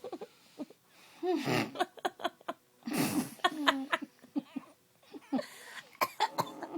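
A person laughing in quick runs of short bursts, with two loud, noisy breaths, one about a second in and one about three seconds in.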